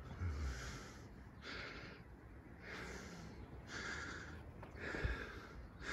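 A person breathing heavily close to the microphone, a rough breath about once a second, with two low thumps, one shortly after the start and one near the end.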